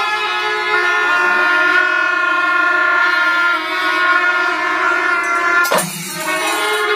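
A row of kombu, the large C-shaped brass horns of Kerala temple ensembles, blowing a long, loud, held chord together. The horns break off suddenly near the end, then sound again.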